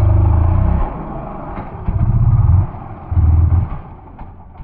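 Dirt bike engine given three short bursts of throttle, dropping back to a lower running note between them.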